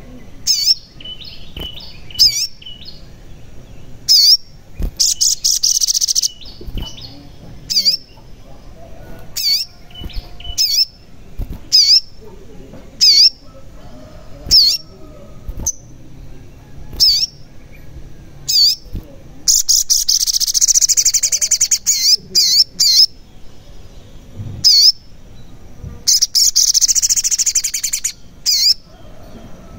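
Male olive-backed sunbird (sogon) calling: sharp, high chirps that sweep downward, about one a second. Two longer, fast twittering songs come in, one around twenty seconds in and one a few seconds before the end.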